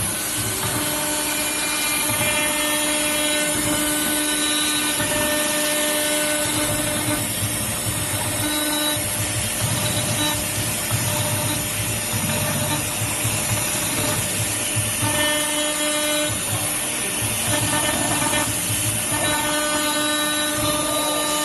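Small CNC router's spindle milling aluminum: a steady machining noise with a few pitched cutting tones that come and go every second or two as the cutter engages.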